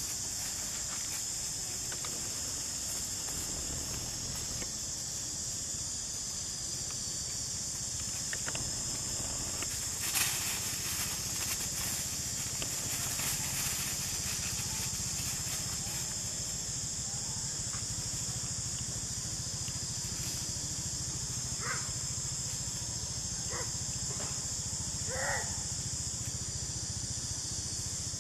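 Steady high-pitched insect drone in the forest, with a brief knock about ten seconds in and a few short chirping calls near the end.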